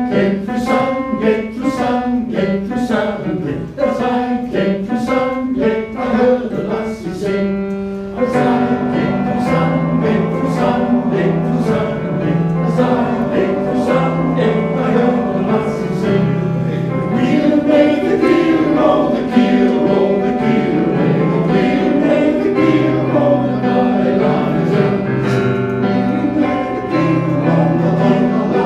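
Male voice choir singing, recorded live in concert. The music fills out suddenly about eight seconds in.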